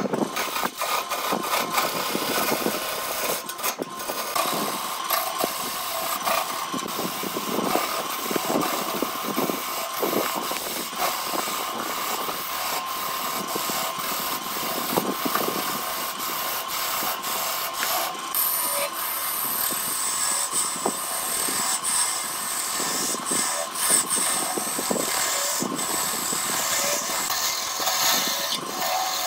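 Wood lathe running while a hand-held turning tool cuts a spinning glued-up segmented wood blank: a steady whine under a scraping hiss, with many small ticks as chips come off. A higher hiss joins about two-thirds of the way through.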